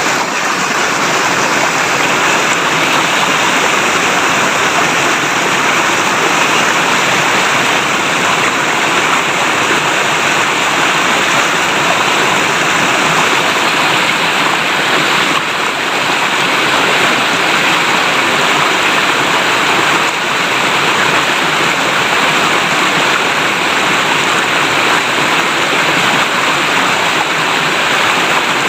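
River water flowing and splashing over rocks, a steady babbling rush that holds even throughout.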